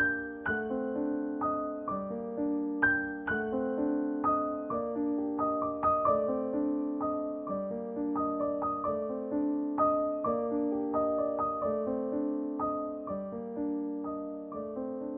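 Background piano music: a melody of struck notes that each fade away, over held chords, at an even pace.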